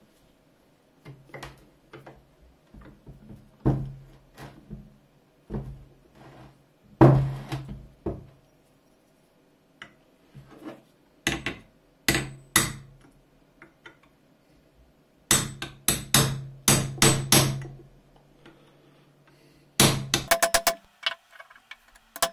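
Hammer striking a steel pin punch to drive a tight rivet out of a brass bell: sharp metal-on-metal strikes, spaced irregularly at first, then in quick runs of blows in the second half and a fast flurry of taps near the end.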